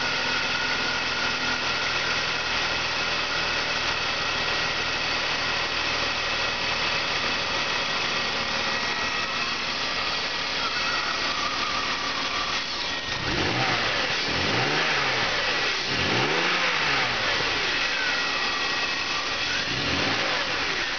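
2002 BMW 325i's 2.5-litre straight-six idling steadily, then revved up and let fall back to idle several times over the last several seconds.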